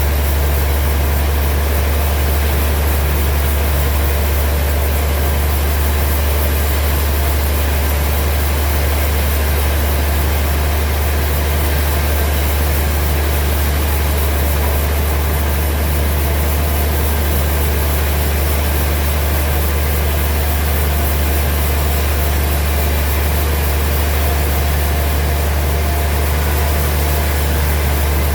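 Sawmill machinery running steadily with a deep, constant hum and hiss, unchanging throughout, with no cutting strokes or impacts standing out.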